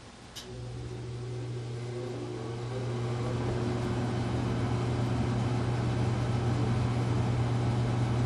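FASCO Parlour ceiling fan (model 938) with its solid-state speed control: a click of the switch, then a steady electric motor hum starts and the whoosh of the blades builds steadily as the fan speeds up.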